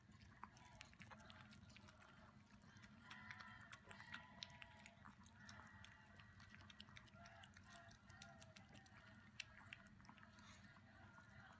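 Maltese dog eating moist food from a bowl: faint, quick, irregular chewing clicks.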